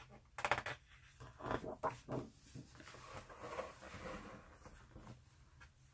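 Glossy pages of a large art book being turned by hand: a few quick paper crackles in the first two seconds, then a softer rustle as the page slides over and settles.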